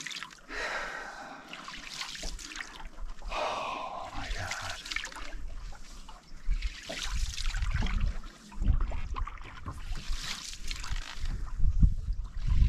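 Wooden canoe paddle stroking through lake water: repeated swishes of the blade, with water trickling and dripping off it between strokes.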